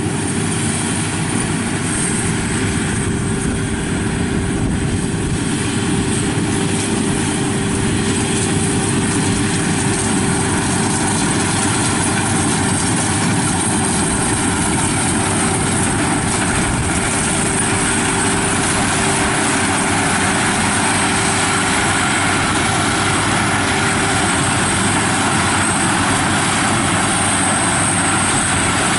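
Rice combine harvester (WD102) running steadily while it cuts and threshes ripe rice: a continuous engine and machinery drone with a steady hum, rising a little in loudness as it comes closer.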